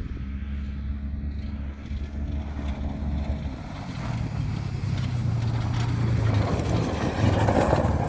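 Polaris RZR 900 Trail side-by-side running. Its engine hum rises in pitch about halfway through as it accelerates, and the noise grows louder toward the end.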